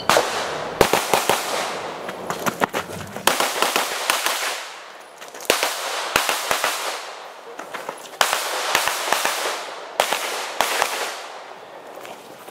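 Pistol shots fired in quick strings: clusters of several rapid shots, with short pauses between them. Each shot trails off in an echo.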